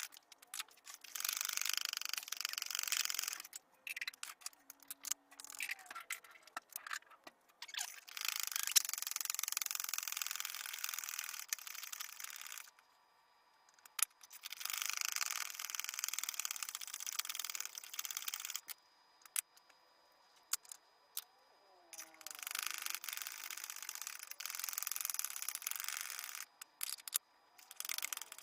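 A Lansky sharpening hone stroked back and forth along the edge of an S30V steel Leatherman blade. It gives a scraping hiss in runs of several seconds, with short pauses between runs.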